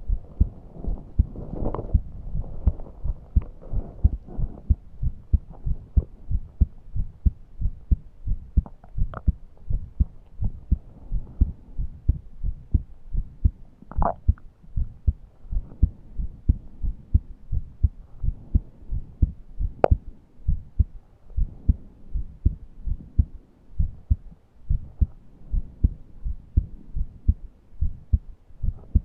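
A person's heartbeat, a steady train of regular low thumps, with breath sounds underneath and a few brief higher whistling wheezes. The breathing is laboured and shallow, the person too short of breath to breathe deeply.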